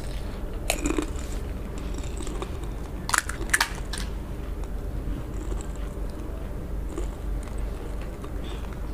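Crisp fuchka (panipuri) shells crunching and cracking as they are chewed and broken open by hand. A few sharp crackles come about a second in, and a quick cluster comes between three and four seconds in.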